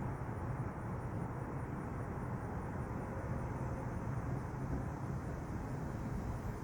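Steady low outdoor background rumble, even throughout with no distinct events.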